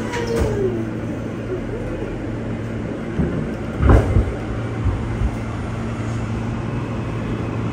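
Alstom R160A subway car running through a tunnel: a steady rumble with a low hum. A short falling whine comes near the start, and a cluster of heavy thumps about four seconds in.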